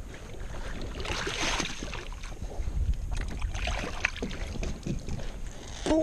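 Water splashing as a hooked largemouth bass thrashes at the surface and is grabbed by the lip, over wind buffeting the microphone.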